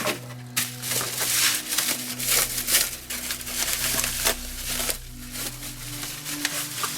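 Packaging crinkling and rustling in bursts as a parcel is handled and unwrapped. It eases off to quieter handling about five seconds in.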